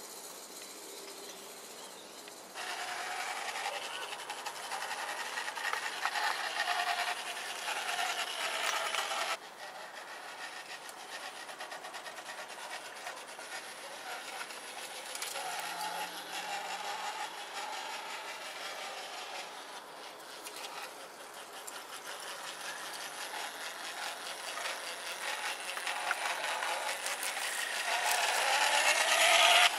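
1:24 scale model tram running on garden track: a steady grinding, rasping run of its wheels and drive on the rails. It grows louder near the end as the tram comes close, and the level jumps abruptly about two and a half seconds in and again after about nine seconds.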